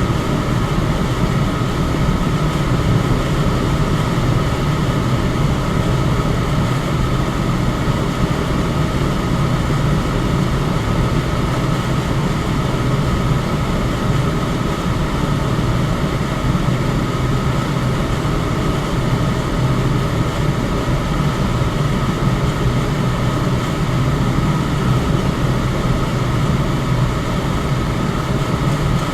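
Electric fan running steadily: an even rush of air with a low hum and a faint steady tone above it.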